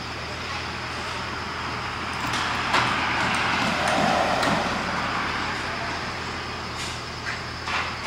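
A car passes along the road, its tyre and engine noise swelling and fading over a few seconds, with a single sharp knock as it approaches. Beneath it runs a steady low hum.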